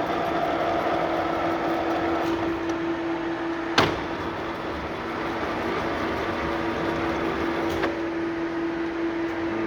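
Lansing 20-inch by 160-inch engine lathe running with a steady hum and one constant tone. A sharp clunk about four seconds in and a fainter one near eight seconds.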